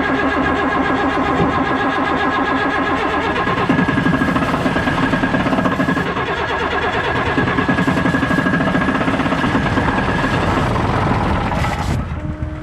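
A truck's starter motor cranking the engine for a long stretch, with a steady whine and a fast, even chugging, without the engine catching. The cranking stops shortly before the end.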